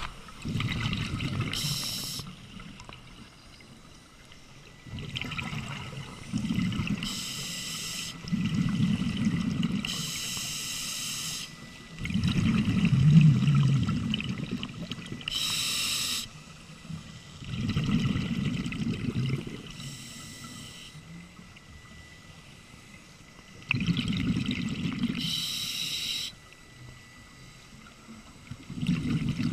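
Scuba diver breathing through a demand regulator, heard underwater: a hiss through the valve on each inhale, then a gurgle of exhaled bubbles, in a slow, regular cycle of about six breaths.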